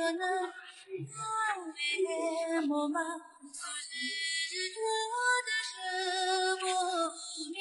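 Background music: a woman singing a melody with long held notes that slide between pitches.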